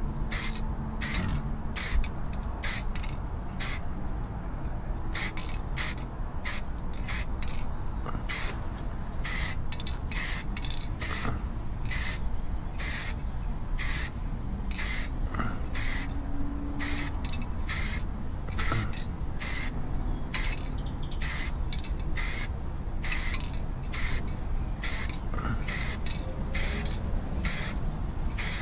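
Black paint being sprayed onto a boat hull in quick short hissing bursts, roughly two a second, as the coat goes on in short passes.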